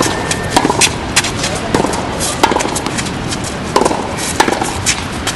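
Tennis ball being hit by rackets and bouncing on a hard court during a rally: a string of sharp pops and thwacks, several in each second or two.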